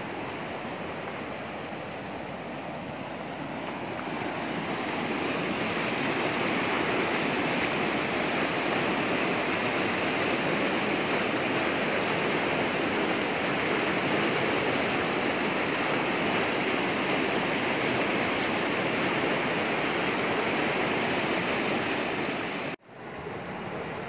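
Steady rush of water, swelling louder a few seconds in; it cuts out for an instant near the end and comes back quieter.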